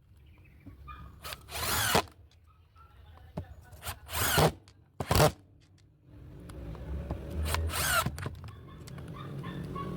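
Bosch GDR 120-Li 12V cordless impact driver driving 3/4-inch screws with a worn, damaged Phillips PH2 bit, in about four short runs of under a second each, each with a rising whine, and faint clicks between runs.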